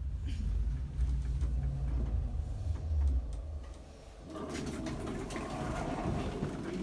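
Elevator car travelling with a low rumbling hum that fades out about four seconds in as the car stops; its sliding doors then open and the busier noise of the hallway comes in.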